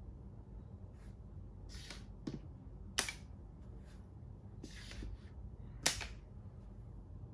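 Plastic makruk (Thai chess) pieces being moved and set down on the board: two sharp clacks about three seconds apart, each preceded by a short scrape or shuffle of the piece.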